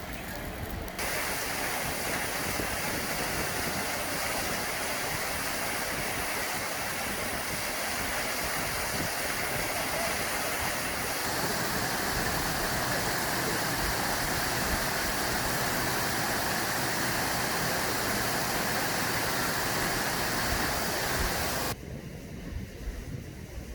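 Waterfall water rushing steadily. It cuts in about a second in and stops suddenly near the end.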